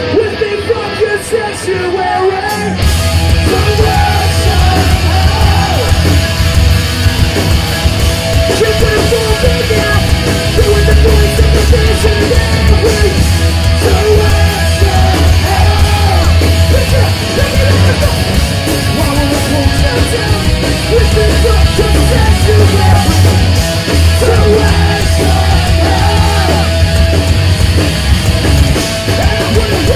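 Hardcore punk band playing live: distorted guitars, bass and drums with shouted vocals. The full band comes in heavily about three seconds in after a lighter opening.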